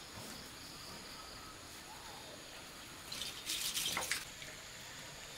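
A burst of rustling lasting about a second, starting about three seconds in, as a mesh net is pulled down and handled. Underneath is a faint, steady background hiss.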